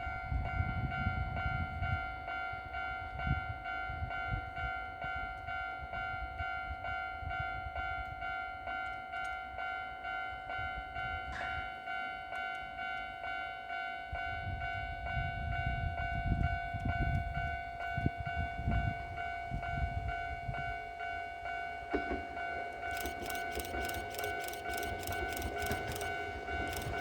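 Japanese railway level-crossing warning bell ringing in a steady, evenly repeating ding-ding, over a low rumble that comes and goes. In the last few seconds a rapid high clatter sets in as the Kintetsu 1026 series train approaches the crossing.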